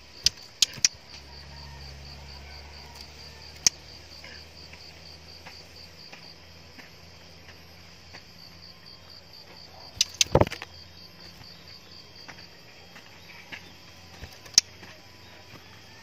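A high, evenly pulsed cricket-like insect trill that breaks off a little past the middle and resumes briefly, with a few sharp clicks scattered through, the loudest cluster about ten seconds in.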